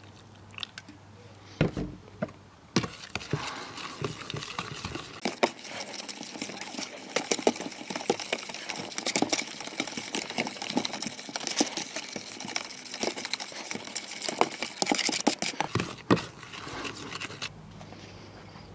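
Spoon stirring a wet baking soda and lemon juice paste in a plastic tub, a steady run of scraping and clicking against the tub from about three seconds in until about sixteen seconds, after a few separate taps.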